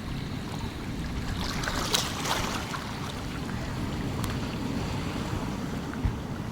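Seashore ambience: a steady low rumble of wind on the microphone and surf, with a wave washing in as a short hissing splash about two seconds in.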